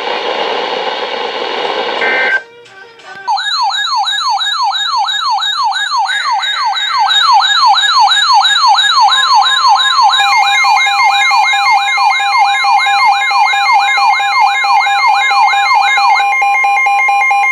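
Electronic siren in a rapid yelp, sweeping up and down about three times a second. About halfway through, a steady tone joins it and the sound gets louder.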